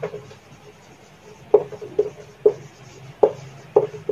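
Whiteboard marker writing a word on a whiteboard: a series of short squeaking strokes, several of them about half a second apart.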